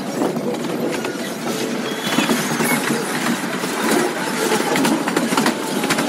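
Passenger train carriage running along the track, heard from an open carriage window: a steady rattling rumble of wheels on rail with many small clicks and a few brief squeaks.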